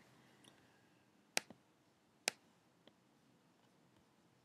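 Two sharp computer-mouse clicks about a second apart, the first followed by a fainter click, then a faint tick near three seconds, over quiet room tone.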